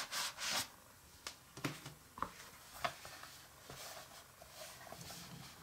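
Paper and card rustling as gloved hands handle the watch's paper certificate and booklets: a few short rustles at the start, then scattered soft taps and clicks, with faint handling noise after that.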